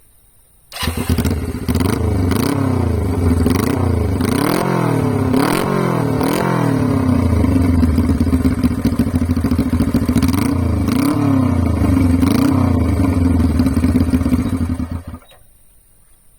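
Honda CB125T's air-cooled parallel-twin engine, through an aftermarket exhaust, starts up about a second in, is blipped up and down in short revs several times between steadier running, and shuts off near the end.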